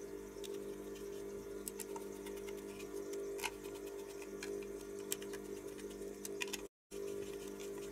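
Scattered light clicks and ticks of a hand screwdriver and a plastic amplifier control panel being handled as its circuit board is screwed back in, over a steady low hum. The sound cuts out for a moment near the end.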